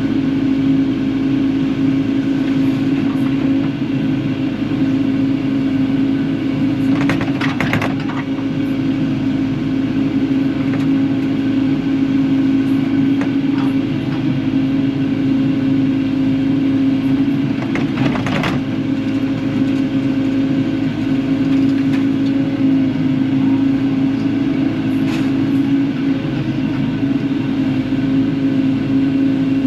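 Kubota KX080-4 excavator's diesel engine running steadily under work, with a few sharp clanks, clearest about seven and eighteen seconds in.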